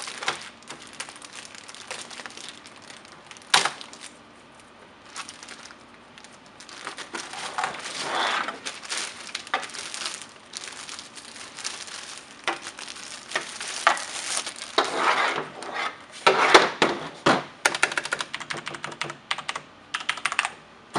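Keys of a Corsair Vengeance K70 mechanical keyboard with Cherry MX Red switches being pressed and typed on, in quick runs of clicks that are densest in the second half, with some plastic wrap crinkling.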